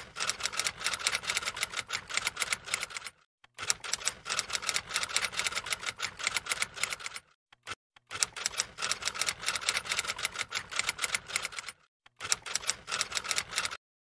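Typewriter keys clacking rapidly, in four runs of typing with short pauses between them.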